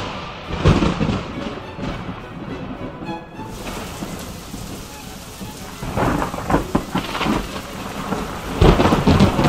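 Thunderstorm: steady rain with thunder. There is a crack of thunder at the start, more cracks and rumbles past the middle, and the loudest clap near the end.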